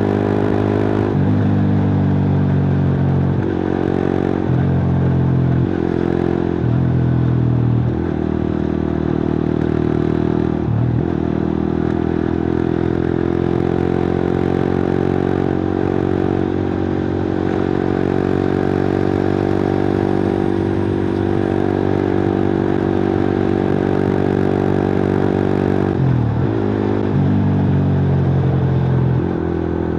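Suzuki GSX-R150's 150 cc single-cylinder engine through a cut-open exhaust while riding. The note breaks and steps in pitch through several gear changes in the first ten seconds or so, then holds steady for about fifteen seconds, and changes gear again near the end.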